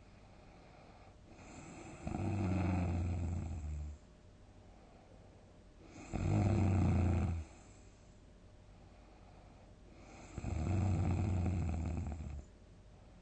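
A person snoring loudly and deeply: three long snores, each one to two seconds of low, steady droning, spaced about four seconds apart.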